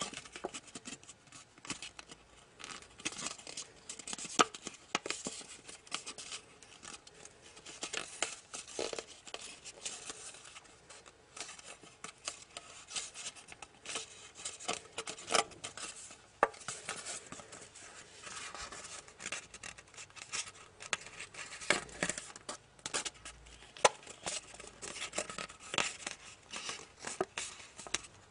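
A sheet of origami paper being pleated and creased by hand: irregular crackles, rustles and crisp creasing clicks as the folds are pressed down.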